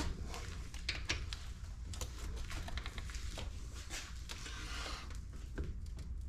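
Scattered light clicks, taps and brief scrapes of hand tools and metal parts being handled during disassembly of a rammer, over a steady low hum.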